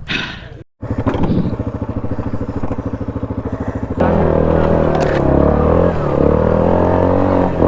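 ATV engine idling with an even putter, then throttled up about four seconds in and running louder and steadier under load as the quad pulls away.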